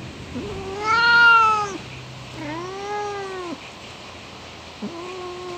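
Domestic cat meowing three times in long, drawn-out calls, each rising and then falling in pitch. The first, about a second in, is the loudest.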